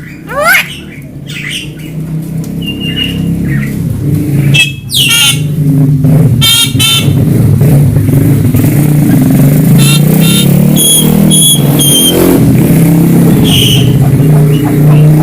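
A loud, steady engine running close by, building up over the first few seconds and holding. Over it are a Javan myna's short rising whistles and sweeping calls, then quick clusters of short repeated high notes.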